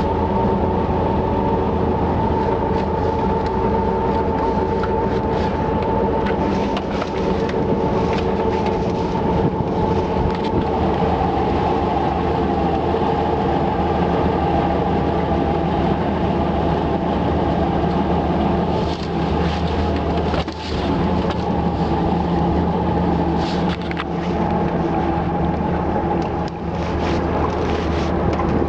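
An engine running steadily at constant speed, with scattered knocks and rattles over it.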